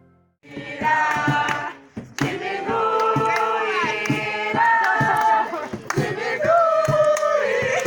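A crowd of voices singing or chanting together in unison, with sharp hits keeping a steady beat under it. It starts about half a second in, after the background music fades out.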